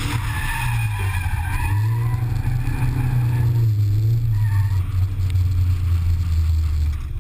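Drift car's engine pulling hard, its pitch rising and falling, heard from inside the car, with tyres squealing through the first three seconds and briefly again about four and a half seconds in.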